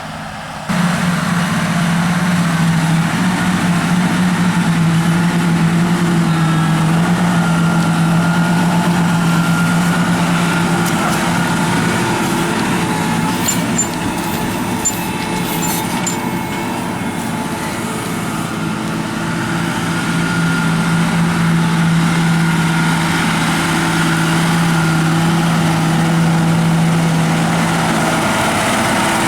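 Large John Deere tractor's diesel engine working steadily under load while pulling a plough. Its pitch wavers slightly, easing a little midway and building again later.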